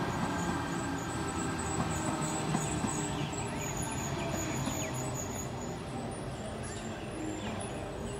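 Sydney Trains Tangara electric suburban train running past close by: a steady rumble of wheels on the rails, with a faint high-pitched whine.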